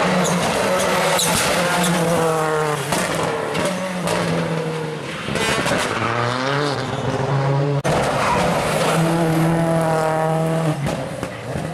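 Rally car engines revving hard, climbing and dropping through gear changes, with tyres skidding and squealing through a turn. The sound breaks off sharply about eight seconds in and another run of revving picks straight up.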